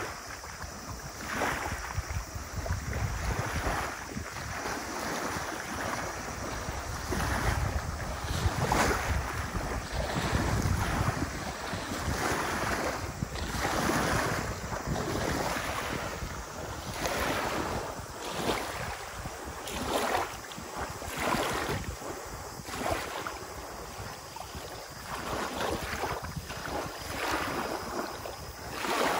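Small lake waves lapping and breaking on a gravelly beach, a wash of surf every one to two seconds. Wind rumbles on the microphone, strongest in the first ten seconds or so.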